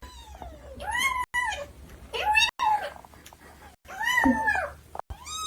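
A cat meowing repeatedly, about four high-pitched meows that each rise and then fall in pitch, spaced a second or so apart.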